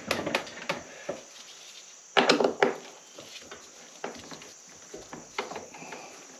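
Clicks and knocks of battery cables and terminal hardware being handled while a pair of lithium batteries is wired to a solar charge controller: a cluster of sharp knocks at the start, another a little over two seconds in, then lighter scattered clicks.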